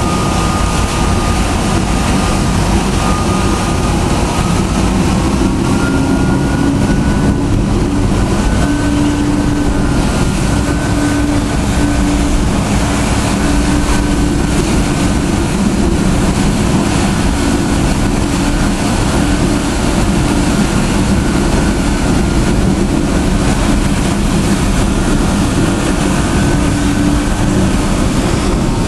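A ferry's engines droning steadily with a faint hum tone, under a loud, even rush of wind and water.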